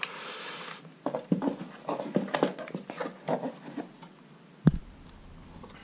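Handling noise of a plastic drone remote and a folded mini drone on a wooden table: a short rustle, a run of small clicks and knocks, then one louder knock near the end.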